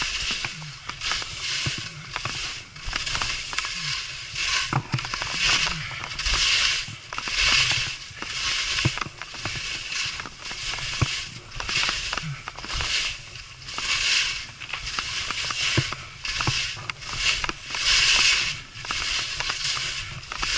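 Skis hissing and scraping over tracked snow in quick linked turns: a rush of noise with each turn, a little more than once a second.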